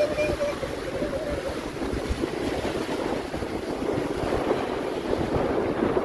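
Small waves breaking and washing up on a sandy shore, with wind buffeting the microphone.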